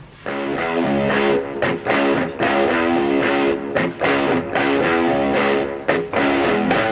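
Background music led by strummed guitar, starting a moment in after a brief drop at a cut.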